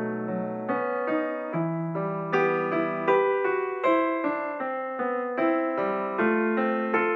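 Background piano music: a melody of single notes struck one after another in a steady, flowing line.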